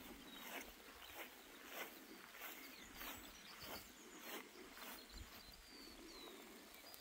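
Faint footsteps walking at a steady pace, a little under two steps a second, fading out about five seconds in, with a few faint high bird chirps.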